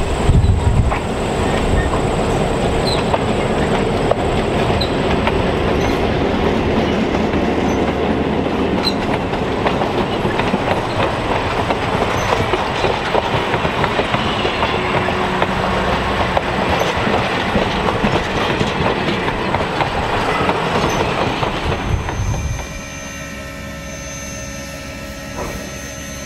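Wabash 1189, an EMD F7A diesel locomotive, passes close by with its engine running. Its train of passenger cars follows, wheels clicking over the rail joints and squealing. After about 22 seconds the sound drops suddenly to a quieter steady hum with a few steady tones.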